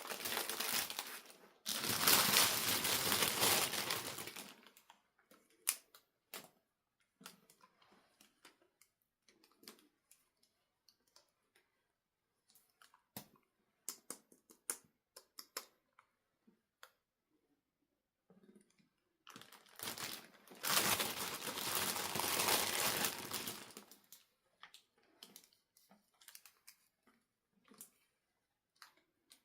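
Packaging being handled and crinkled, in two long stretches, with scattered small clicks and taps between them.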